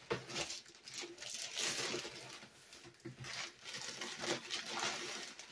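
Cardboard air fryer box being opened by hand: its flaps and the packaging inside rustle, scrape and crinkle irregularly, with a few small knocks.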